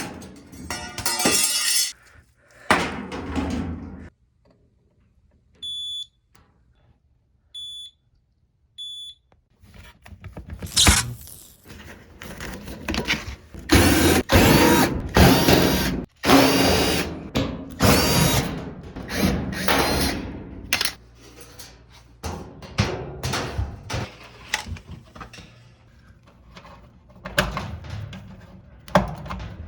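Three short high electronic beeps, then a power drill running in repeated short bursts among knocks and clatter of tool work: screws being driven out to open up a Whirlpool electric dryer.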